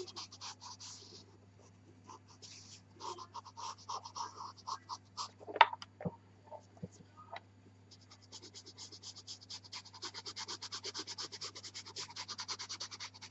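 Pastel pencil scratching on velour pastel paper, with short strokes at first and then a long run of quick, even back-and-forth strokes, several a second, near the end. A single sharp knock about five and a half seconds in.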